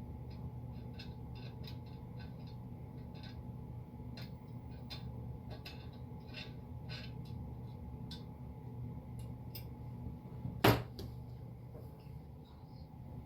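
Light clicks and taps of metal parts and tools being handled while a laser engraver's frame is assembled, with one much louder sharp knock about ten and a half seconds in.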